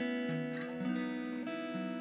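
Acoustic guitar strumming slow chords, the chord changing a few times.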